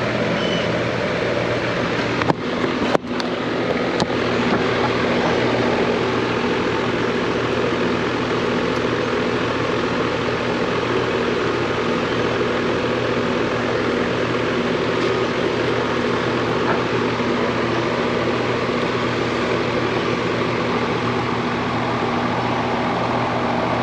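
Central air conditioner's outdoor condensing unit running steadily: an even rush of condenser-fan air over a low compressor hum, on a new control board that replaced the failed one. A few sharp clicks two to four seconds in.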